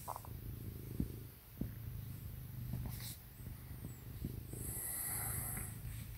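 Domestic cat purring steadily from very close, a continuous low rumble.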